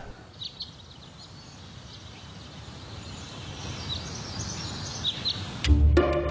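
Faint background ambience with a few short, high chirps scattered through it. About five and a half seconds in, music with a heavy bass starts.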